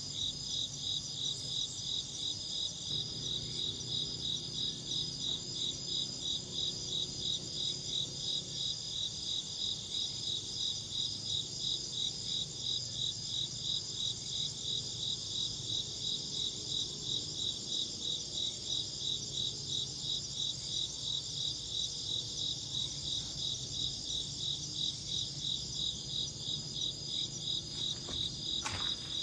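Insects chirping in a high, steady, evenly repeated pulse, a couple of chirps a second.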